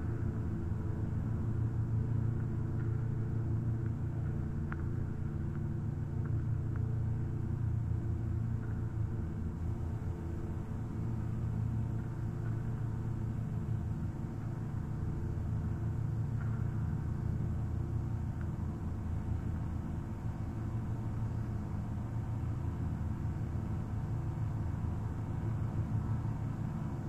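Steady low rumbling drone built of several held low tones, with a couple of faint clicks.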